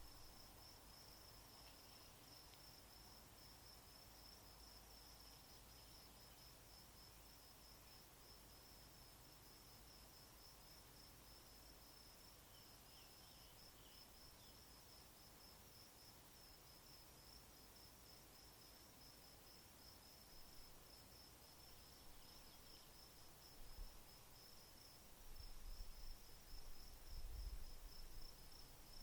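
Faint, steady high-pitched insect trill, pulsing rapidly at one pitch. Low rumbles come in near the end.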